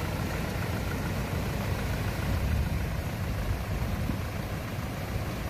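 Diesel engine of a Kubota M6040SU tractor running steadily at idle while the tractor sits bogged in the mud.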